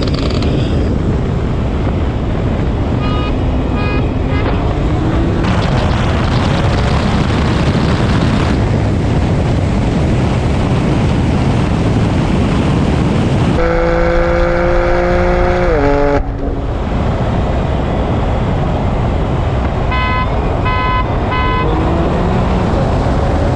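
Heavy wind and road rush on a camera mounted outside a car at highway speed. Twice, a quick set of three short horn toots is followed by an engine note rising as the cars accelerate. Past the middle, a steady horn-like tone holds for about two and a half seconds, dips slightly and cuts off.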